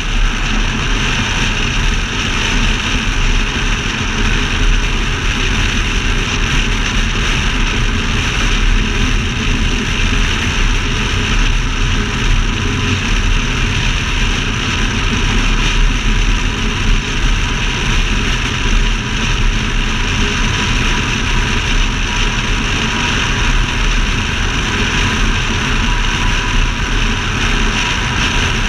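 Steady wind rush and road noise over a camera mounted on the outside of a C6 Corvette cruising at highway speed, with the car's V8 droning underneath at an even pace.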